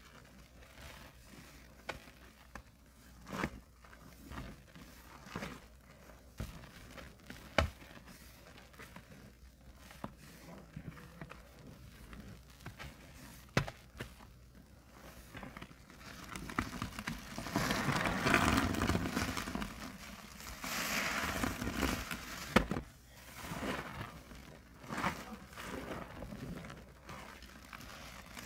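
A soapy, water-soaked sponge pressed and squeezed by gloved hands in a basin of sudsy water. At first there are soft squelches and scattered small clicks; from about halfway come louder wet squishing and sloshing swells, one every second or two.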